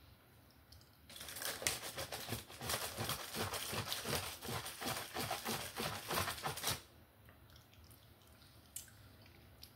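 Close, dense crackling and crunching, a rapid run of sharp crackles for about six seconds. It starts about a second in and stops suddenly near the end, followed by a few faint clicks.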